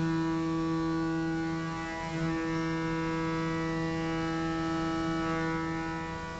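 Steady machine hum in a machine shop, one fixed pitch with many overtones, wavering briefly about two seconds in.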